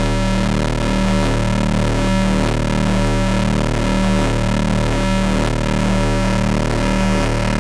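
Astrogorus synthesizer playing a dense, noisy drone of many held tones. A low throb pulses at a steady rhythm of about once a second.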